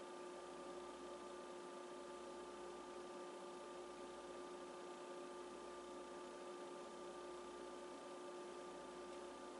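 Faint steady hiss with a constant hum of a few fixed tones, unchanging throughout, and no distinct sounds.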